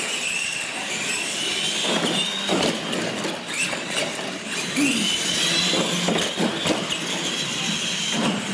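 Electric motors and gear trains of two solid-axle R/C monster trucks whining as they race, the high-pitched whine rising and falling with the throttle.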